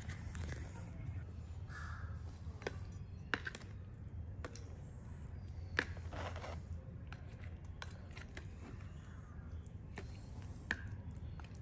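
A metal spoon clicking sharply against a plastic food tub several times as wet cat food is scooped, and a tabby cat giving a short, harsh meow about six seconds in.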